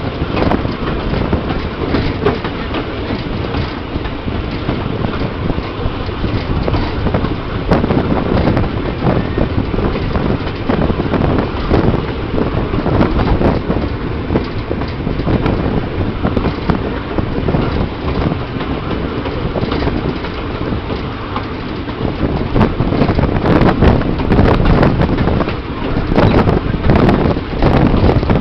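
A goods train hauled by two steam locomotives running along the track, heard from one of its wagons: a steady running noise with a dense, irregular clatter of wheels and wagons, and wind buffeting the microphone.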